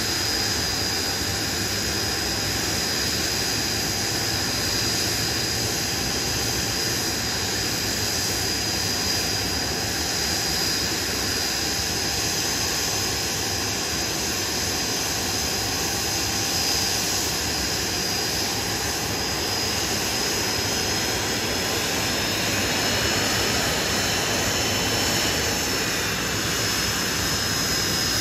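Blackburn Buccaneer's twin Rolls-Royce Spey jet engines running steadily as the aircraft taxis slowly, a continuous jet roar with a high whine on top. Later on, faint parts of the whine shift in pitch.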